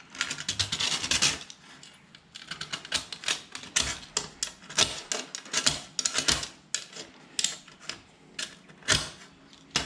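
Hand deburring tool scraping around the cut edge of a hole in aluminium chequer plate: a run of quick, irregular scrapes and clicks as the blade knocks the sharp edge off.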